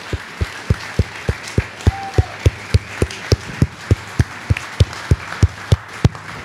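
Audience applauding, with one person's steady claps close to the microphone standing out, a little over three a second.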